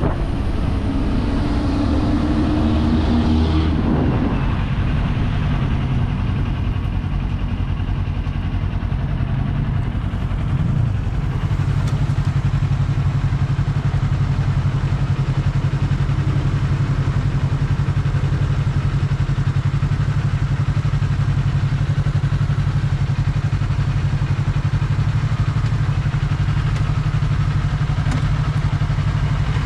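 Kawasaki Z400 parallel-twin motorcycle engine. Its note shifts and falls over the first several seconds, then settles into a steady idle about ten seconds in.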